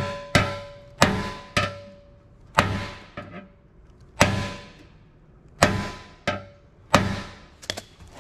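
Body hammer striking a steel Harley-Davidson rear fender over a dolly held behind it, about ten sharp metallic blows at an uneven pace, each with a brief ring. The blows are knocking down a high spot in the panel.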